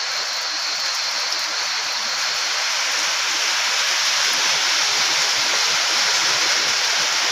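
Heavy rain falling, a steady even hiss that grows a little louder over the first few seconds.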